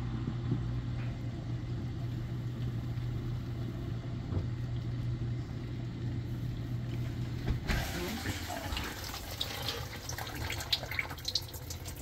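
Maytag dishwasher pump motor running with a steady low hum during its diagnostic test cycle. Nearly eight seconds in the hum stops as the door is opened, giving way to a hiss with scattered light clicks and drips from the wet tub and racks.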